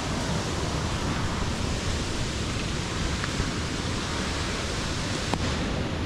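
Large waterfall's falling water making a steady, even rushing noise.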